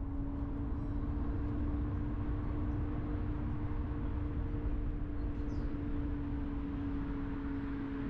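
Car driving at a steady speed: the engine drones at an even pitch over low tyre and road rumble.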